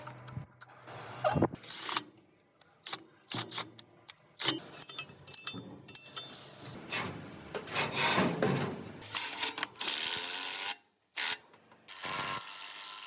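Hand-tool work: irregular scraping and rubbing with scattered clicks and knocks, stopping and starting in short spells.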